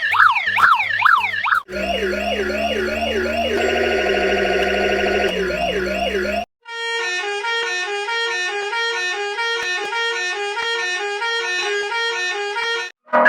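Electronic siren sound effects edited into a musical remix: first fast repeating siren sweeps, then slower wailing sweeps and a held warbling tone over a low drone, cutting off about six seconds in. After a brief gap, a quick stepped pattern of alternating siren pitches plays for about six seconds and stops sharply.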